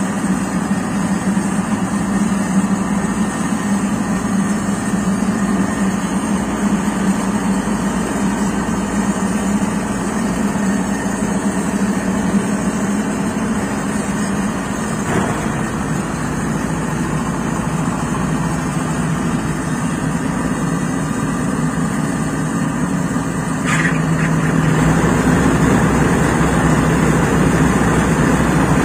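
Crown Sumo 106 combine harvester's engine running steadily. Near the end a short knock comes, and the running gets louder and deeper.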